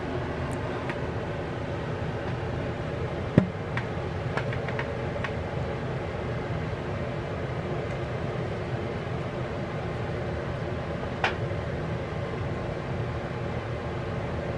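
Steady hum of a running kitchen appliance fan. A sharp knock comes about three seconds in, a few light taps follow, and a lighter click comes near the end.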